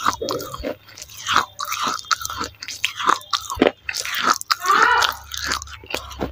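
Close-miked biting and chewing of broken clay saucer pieces: irregular sharp crunches as the clay cracks between the teeth, with wet mouth sounds in between.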